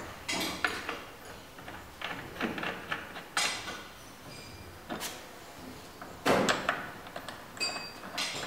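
Irregular metallic clicks, knocks and short sliding scrapes from a hand-operated HDPE butt fusion machine being handled, its clamps, guide rods and lever moved by hand. The loudest knock comes about six seconds in, and there is a short squeak near the end.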